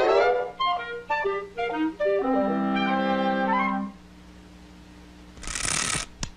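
Cartoon orchestral score: a quick run of short notes, then a chord held for a couple of seconds. After a quiet gap comes a brief hissing whoosh sound effect near the end.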